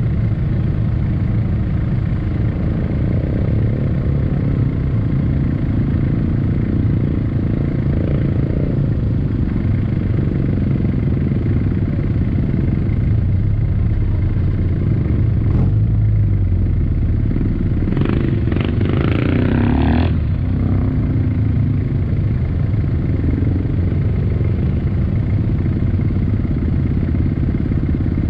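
Off-road 4x4's engine idling steadily while the vehicle stands still. About two-thirds of the way in, a short, louder burst of a different pitched sound lasts around two seconds.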